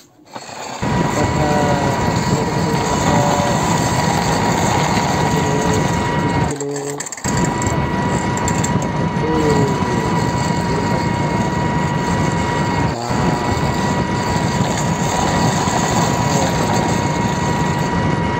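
A loud, steady engine-like running sound with a thin high whine over it, for the toy dumper truck. It cuts in about a second in, drops out briefly once, and stops abruptly at the end.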